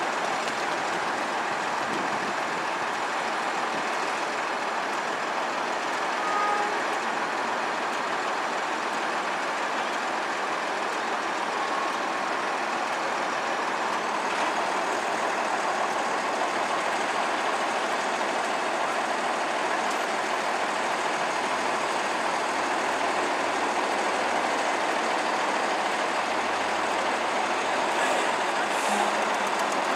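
A diesel transit bus's rear-mounted engine idling at a stop, a steady, even running noise from the engine compartment.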